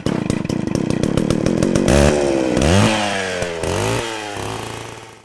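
Small petrol engine speeding up from a rapid putter, then revving up and down several times before fading out near the end.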